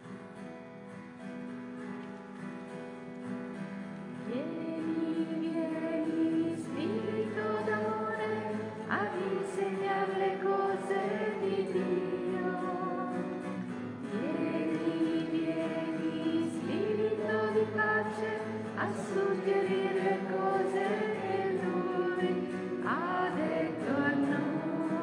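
Slow sacred music with a choir singing long held notes. It swells up over the first few seconds, then carries on steadily.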